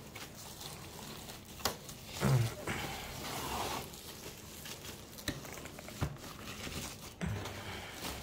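Rustling and crinkling of the monitor's white protective wrapping sheet as it is pulled back in its cardboard box, with a few soft knocks of handling, the loudest a dull thump about two seconds in.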